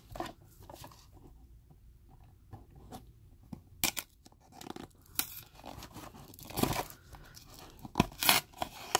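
Cardboard and plastic packaging of a Funko Mystery Minis blind box being handled and torn by hand: scattered crackling and tearing, with louder rips about four, seven and eight seconds in.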